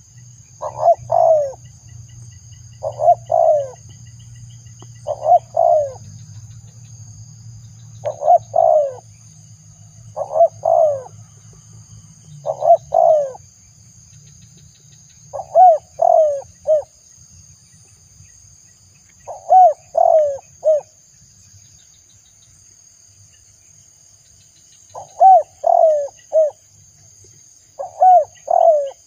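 Spotted dove cooing: about ten short phrases of two to four soft, falling coo notes, repeated every two to four seconds, with longer gaps in the second half. A steady high-pitched hum runs underneath, and a low hum fades out about halfway.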